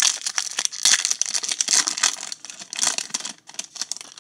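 Plastic foil wrapper of a baseball card pack crinkling and tearing as it is ripped open by hand. The dense crackling thins out near the end and stops abruptly.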